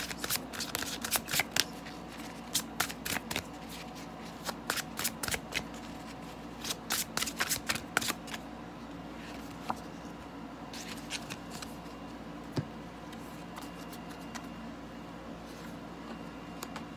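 A deck of tarot cards being shuffled by hand: a quick run of card snaps and rustles for the first eight seconds or so, then only a few scattered card clicks.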